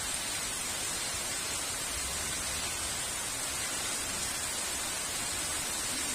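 Heavy rain falling, a steady even hiss with no thunder claps.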